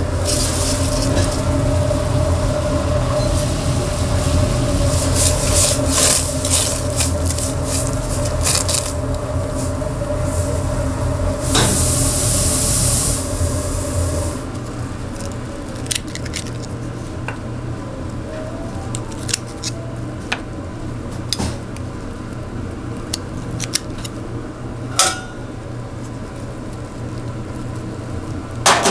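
Kitchen handling sounds: scattered clicks, clinks and knocks of utensils and dishes. A steady low hum runs under the first half and stops about halfway, with a brief hiss just before it stops.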